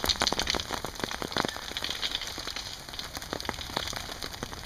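Steady rain falling, with many separate drops tapping on a surface.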